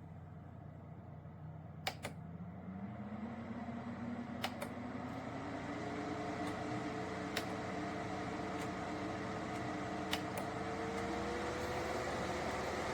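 Small electric fan running and spinning up, its hum rising steadily in pitch and getting louder, with a few sharp clicks along the way.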